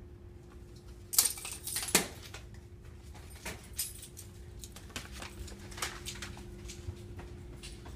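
Keys jangling and a metal rattle at a bank of mailboxes about a second in, the loudest moment, then scattered knocks of hurried footsteps and phone handling over a faint steady building hum.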